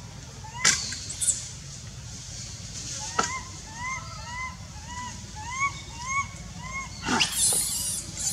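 An animal call, a short rising-and-falling note, repeats about twice a second from about three seconds in over a steady low hum. A few sharp snaps come before it, and a louder rustle near the end.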